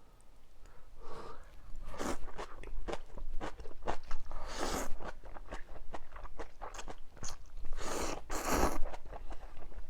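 Close-miked eating sounds of mala instant ramyun: chewing and wet mouth clicks, with a few longer noisy stretches about 1, 2, 4.5 and 8 seconds in.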